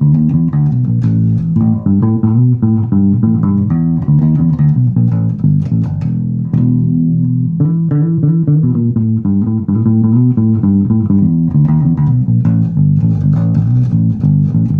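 Rickenbacker 2050 El Dorado electric bass with flatwound strings, played through a bass amp with all controls up full and the pickup toggle switch in the middle: a continuous run of plucked notes, changing several times a second.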